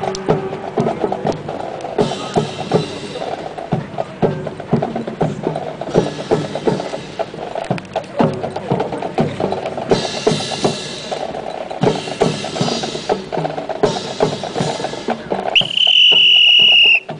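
Drill team's boots stamping in step and rifles slapped and handled in unison, a dense run of sharp knocks and clicks. Near the end a loud, high steady tone sounds for about a second and a half.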